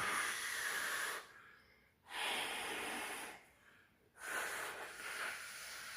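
A man breathing heavily close to the microphone: three long, noisy breaths, each lasting about a second or more, with short pauses between them.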